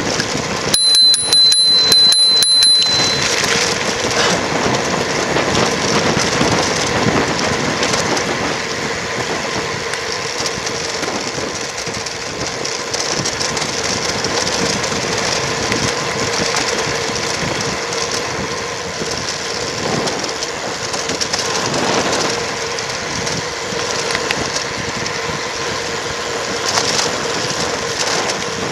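Bicycle freewheeling fast down a steep tarmac lane without braking: a steady rush of wind over the microphone with tyre noise on the road. About a second in, a high ringing tone with rapid clicks lasts for about two seconds.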